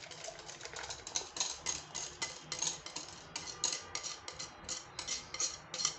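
Wire whisk tapping and scraping against a ceramic bowl and a metal saucepan as lemon cream mixture is scraped from the bowl into the pan: light, quick clicks, about four a second.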